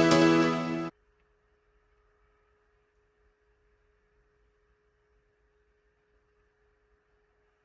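Background music that cuts off abruptly about a second in, followed by near silence with only a faint steady tone.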